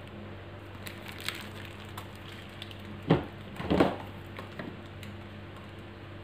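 Handling noises from a plastic piping bag of batter and tin cake cups on a metal tray: a few light taps, then two louder short bumps about three and four seconds in, over a steady low hum.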